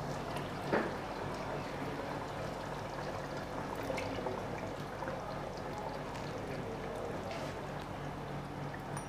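Chicken korma simmering in a large non-stick pot while yogurt is poured in from a bowl, with a light knock about a second in.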